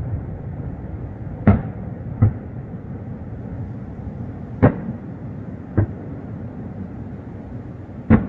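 Aerial fireworks shells bursting: five sharp booms that come in pairs, a louder bang followed by a fainter one about a second later, over a steady low rumble of background noise.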